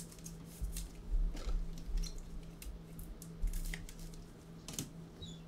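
Trading cards and their packaging being handled on a table: scattered light clicks and rustles with a few soft thumps, over a faint steady hum.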